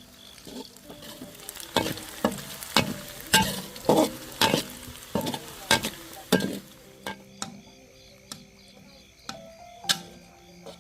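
A run of sharp clattering knocks, about a dozen, bunched from about two to seven seconds in, each ringing briefly, over a faint hiss. A faint high chirping repeats evenly throughout.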